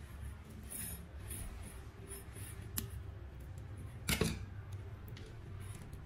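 Scissors scraping and snipping at the white plastic insulation on the end of a coaxial cable, with light scraping early and a sharper click about four seconds in.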